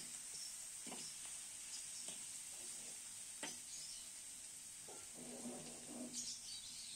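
Chicken pieces and spice paste frying faintly in an aluminium wok, stirred with a perforated metal spatula that scrapes and clicks against the pan a few times. A short low hum sounds about five seconds in.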